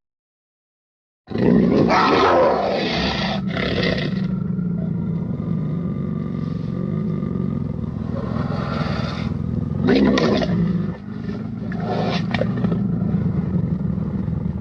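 Made-up horror monster vocalisations: after about a second of silence, a continuous low growl with louder roars swelling over it several times.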